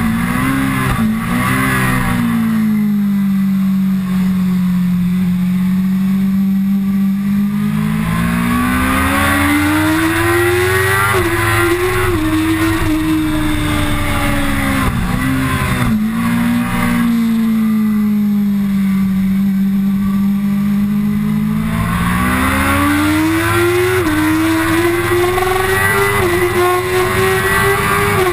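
Kawasaki ZX-10R's inline-four engine at racing speed: revs drop sharply with downshifts under braking, hold steady through the corner, then climb in steps through quick upshifts under hard acceleration, and the whole pattern repeats twice.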